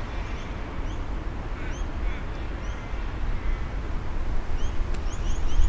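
Small birds chirping in short, high, upward-flicking notes scattered through, over a steady low rumble that grows louder near the end.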